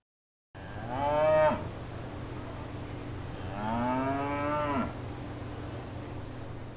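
A cow mooing twice: two long, drawn-out moos a couple of seconds apart, over a steady low background rumble.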